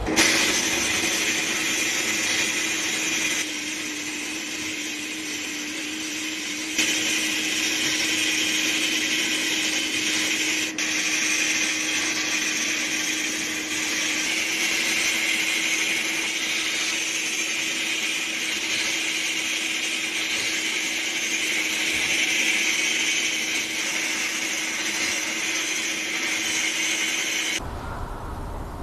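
Electric power tool running steadily: a constant motor hum with a hiss above it, which stops about a second before the end.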